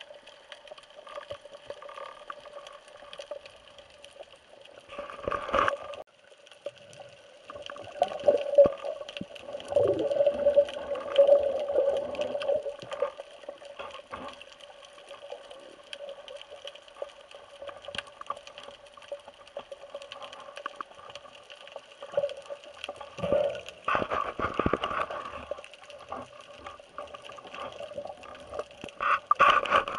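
Muffled underwater sound through a diving camera's housing: a steady faint hum, with louder swishes of moving water and knocks several times, the longest from about eight to thirteen seconds in, another around twenty-four seconds and one near the end.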